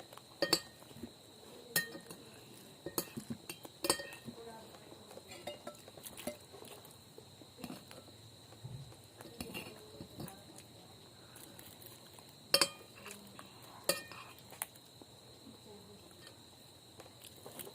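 Metal eating utensils clinking and scraping on a plate at irregular moments during a meal, the two sharpest clinks about two-thirds of the way through. A faint steady high tone runs underneath.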